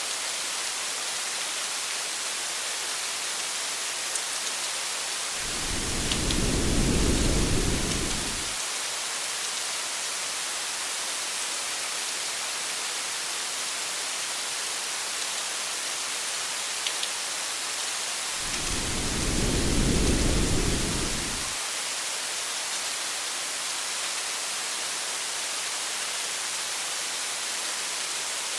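Steady rain hiss with two short, low rumbles of thunder, one about five seconds in and one about eighteen seconds in, each lasting about three seconds.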